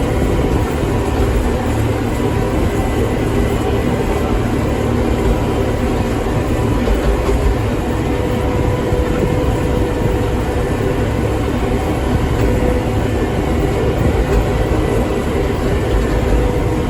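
Tractor engine running steadily: a constant low drone with a faint steady tone above it.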